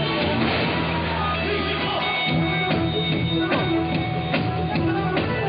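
Live band music with electric guitar and a drum kit keeping the beat, with a few sliding notes.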